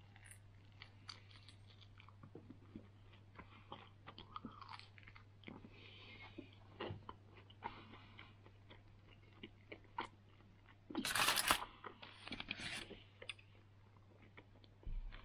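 Close-up biting and chewing of crisp kisu (sillago) tempura reheated in a toaster oven: scattered crunches and small crackles of the batter, with a louder crackling burst about eleven seconds in.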